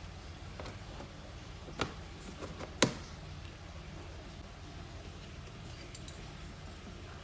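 Clear plastic storage tubs and their lids being handled: a few sharp plastic clicks and knocks, the loudest nearly three seconds in, over a low steady hum.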